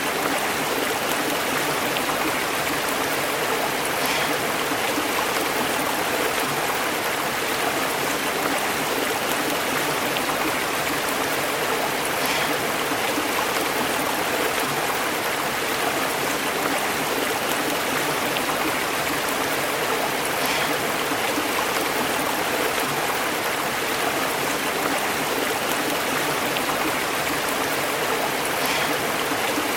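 Stream burbling steadily, its water bubbling over rocks.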